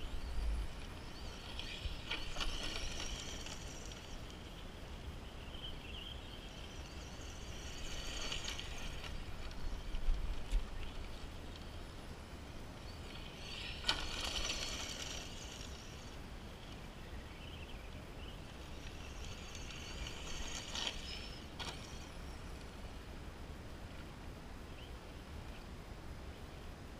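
Arrma Senton 4x4 brushed RC short course truck on a 2S LiPo: the electric motor and drivetrain whine, with tyres hissing over gravel, swelling and fading as the truck passes four times, about every six seconds. There is a sharp knock about halfway through, and a steady low wind rumble on the microphone.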